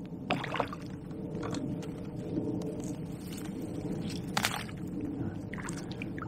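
Water sloshing and splashing as a hooked fish is played at the surface on a pole, with a few short sharp knocks, over a steady low rumble.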